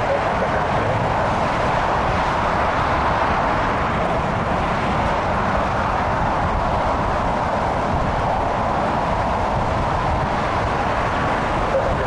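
Strong wind buffeting the microphone in uneven low thumps over a steady, loud rushing noise.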